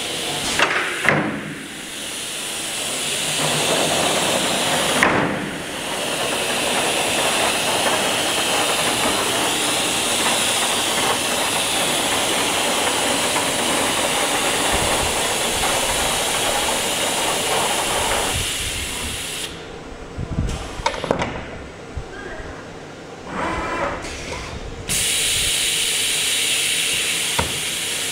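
Steady loud hiss of air from a CNC router's vacuum and pneumatic system, with a few short knocks. The hiss drops away for a few seconds about twenty seconds in, then comes back.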